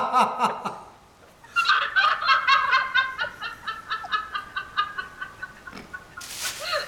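High-pitched laughter in rapid "ha-ha" pulses: a bout that trails off about a second in, then a longer run of quick pulses. Near the end comes a short hissy burst.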